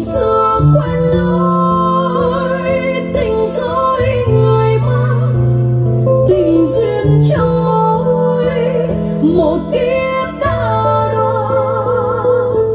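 A slow Vietnamese ballad playing back: a low bass and acoustic guitar under a wavering melody line. It is streamed over Bluetooth with LDAC switched off.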